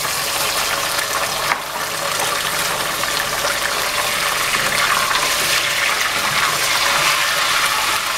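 Raw beef pieces frying in hot oil with browned onions, a loud steady sizzle as the meat's juices hit the oil, with a wooden spoon stirring them in the pot.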